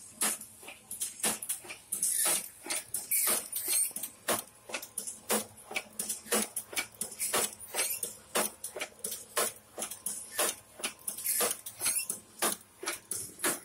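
Automatic salt packing machine running: a fast, uneven clatter of clicks and ticks, several a second, with bursts of high hiss.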